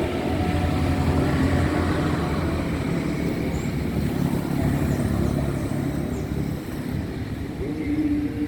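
Motor vehicle engines running steadily, with a held engine tone rising slightly in pitch near the end.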